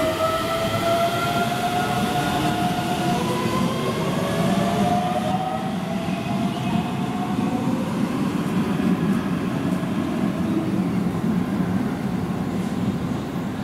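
Keihan 9000-series electric train pulling away from the platform: its traction motors whine in several tones rising in pitch as it accelerates, fading after about seven seconds into a steady rumble of wheels on rail as it draws away.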